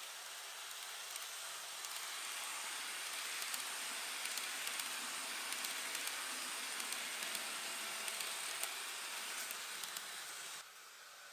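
N-gauge KiHa 189 series model train running on the layout track: a steady whirring hiss of motor and wheels that grows louder over the first few seconds, with small clicks scattered through it, then drops off suddenly near the end.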